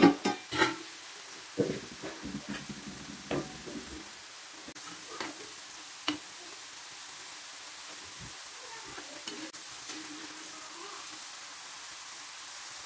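Beetroot pakodas deep-frying in hot oil in a kadai, a steady sizzle throughout. A perforated steel slotted spoon stirs them, knocking and scraping against the pan several times in the first few seconds, loudest at the very start.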